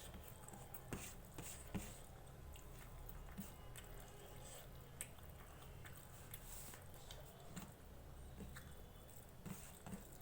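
Faint close-up chewing of rice and vegetable curry: soft, irregular mouth clicks and smacks.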